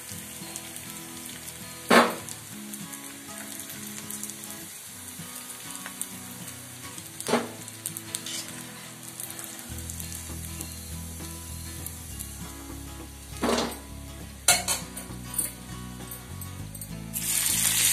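Idli pieces deep-frying in hot oil in an iron kadai: a steady sizzle, broken by a few sharp knocks of the steel slotted spoon against the pan. Near the end a fresh batch goes into the oil and the sizzle suddenly grows much louder.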